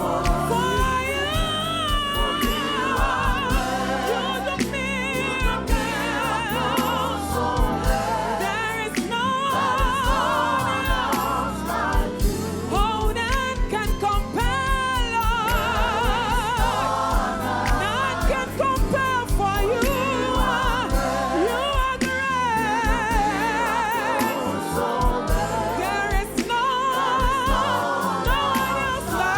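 Gospel worship song: a solo voice with strong vibrato, joined by a choir, over a band with a steady beat.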